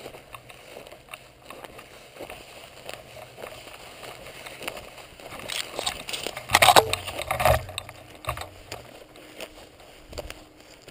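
A person walking through tall dry grass: rustling and small knocks of footsteps and brushing stalks, with a much louder stretch of rustling and scraping against the microphone about six to seven and a half seconds in.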